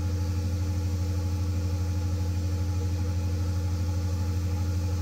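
Large natural-gas generator engine running steadily under a 200 kW load: a deep, even drone with a fast, regular pulse.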